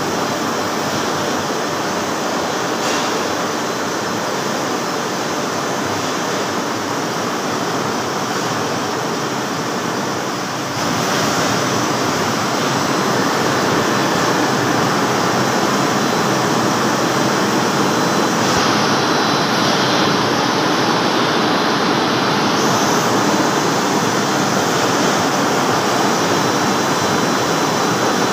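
A CNC roll-turning lathe running as it turns a steel roll: a loud, steady rushing machine noise with a faint high whine, stepping up in loudness about eleven seconds in.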